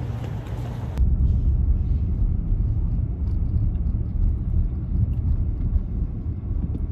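About a second of outdoor wind noise, then an abrupt switch to the steady low rumble of a car driving along a road, heard from inside the cabin.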